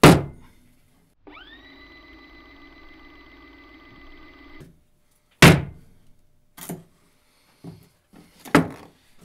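Heavy thunks of a folding knife being swung hard into a target on a table: one loud blow at the start, another about halfway through and a third near the end, with a few lighter knocks between them. Between the first two blows, a steady humming tone rises into pitch and holds for about three seconds, then cuts off.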